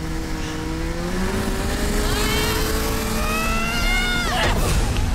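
Snowmobile engine revving up as it accelerates, its whine climbing steadily in pitch over a low rumble, then cutting off near the end amid a few sharp knocks.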